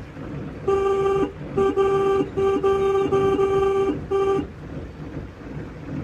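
Car horn sounding a run of short honks on one steady pitch, starting about a second in and stopping a little before the halfway-past-four mark.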